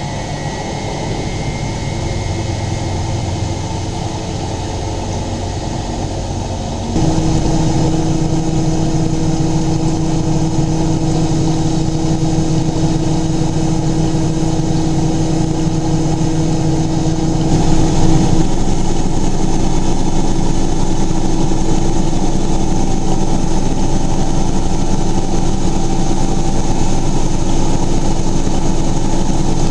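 Miele Novotronic W923 washing machine running, its motor giving a steady hum with fixed tones. About seven seconds in it suddenly gets louder, and around eighteen seconds the tone shifts again.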